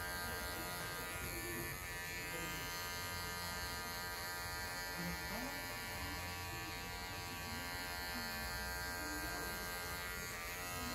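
Electric hair clipper running with a steady buzz as it is worked up the side of a short fade haircut; its pitch dips briefly twice.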